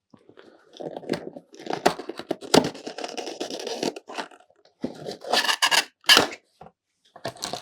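Plastic shrink-wrap being torn and peeled off a cardboard booster box, crinkling and scratching in irregular bursts, with two louder rips in the second half.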